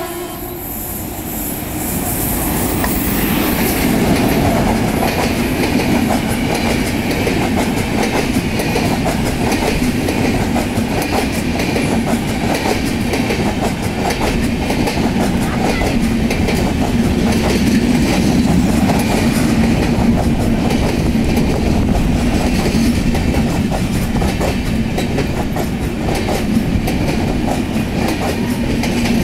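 Electric-hauled Indian Railways express train of LHB chair-car coaches passing close along a station platform. Steady rumble of wheels on rail with rapid clickety-clack over the rail joints, growing louder over the first few seconds as the locomotive arrives and then holding steady as the coaches pass.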